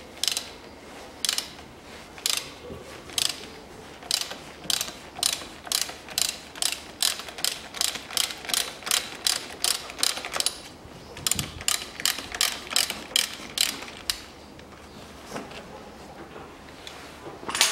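A ratchet wrench with a 27 mm socket clicks in repeated short bursts, one for each return stroke, as it unscrews the oil filter housing cap. The strokes come faster in the middle and stop about three-quarters of the way through.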